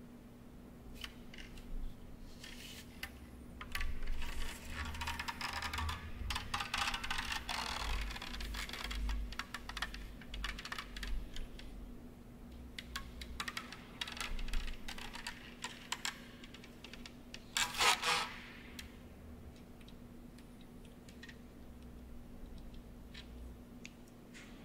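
Irregular clicks, taps and rattles from a wooden plank with small metal fittings as a dancer shifts her weight on it, over low thuds. The rattling is dense from about four to twelve seconds in, with one louder burst near eighteen seconds, and thins to scattered clicks near the end; a steady low hum sits underneath.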